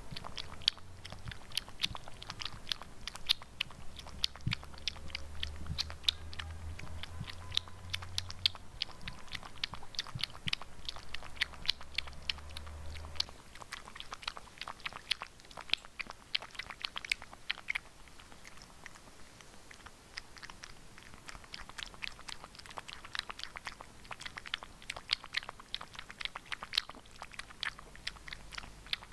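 A cat lapping water from a bowl, a quick steady run of small clicks from its tongue.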